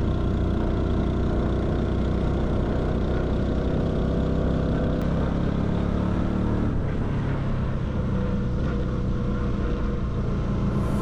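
Small Hunter Cub motorcycle engine running steadily while riding, its engine note shifting about seven seconds in.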